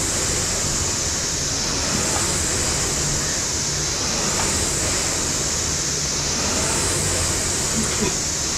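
Air-resistance flywheel of a Concept2-clone rowing machine whooshing steadily under continuous rowing. The rush swells and eases about every two seconds, once per stroke.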